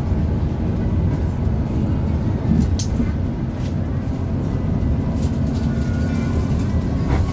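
Bus engine and road noise heard from inside the driver's cab while cruising: a steady low drone, with a single sharp click about three seconds in.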